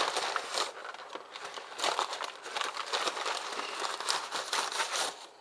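Wrapped breakfast burritos being handled, their wrappers crinkling and rustling in irregular bursts.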